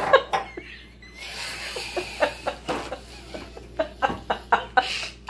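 Women laughing hard, in breathy gasps and short high-pitched bursts that come faster near the end.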